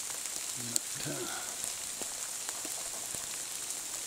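Steady rain falling on forest foliage: an even hiss dotted with scattered drips and taps.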